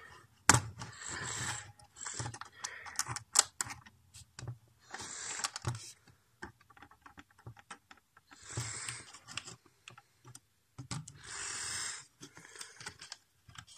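Close-up handling of small plastic parts and rubber bands: irregular clicks and taps, with a few noisy stretches about a second long.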